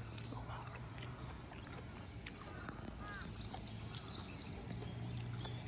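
Crows cawing faintly a few times, short arched calls over a steady outdoor background with a low hum and light clicks.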